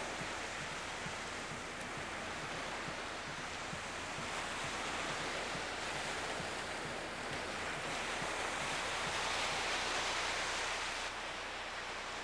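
Ocean surf breaking on a sandy beach: a steady rush of waves that swells a little late on and eases off near the end.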